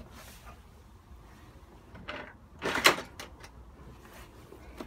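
A hand tool being picked up and handled: a short rustle, then a clatter with one sharp knock about three seconds in and a few light clicks after it.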